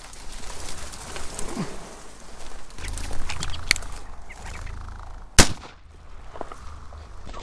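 A single shotgun shot, sharp and loud, about five seconds in.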